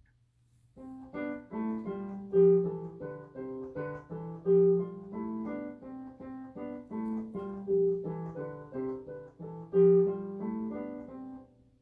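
Background music: a simple melody played note by note on a piano keyboard, over lower accompanying notes, starting about a second in. It is a home recording by the boy himself.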